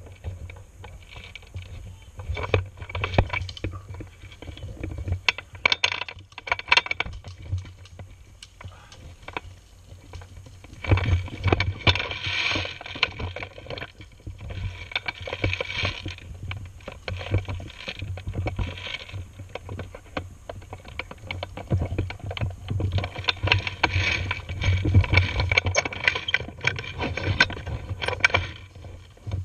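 Handling noise from a camera mounted on an airsoft rifle as it is carried and swung about: rubbing, rustling and scattered clicks and knocks over a low rumble, louder in two stretches about eleven seconds in and again about twenty-three seconds in.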